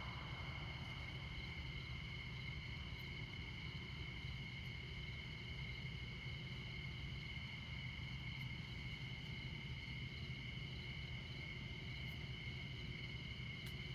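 Crickets chirping in a continuous, steady chorus at two or three high pitches, over a low, steady rumble of distant interstate traffic.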